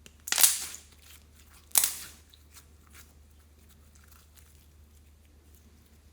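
Slime being squeezed by hand, giving two loud sudden pops about a second and a half apart, followed by a few faint clicks.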